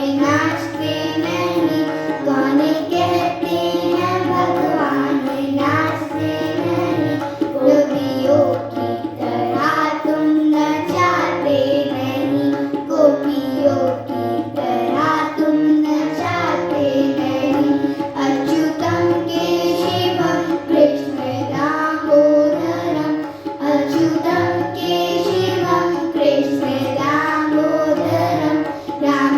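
Children singing a Hindu devotional bhajan to Krishna in unison, accompanied by tabla and a sustained melodic instrument.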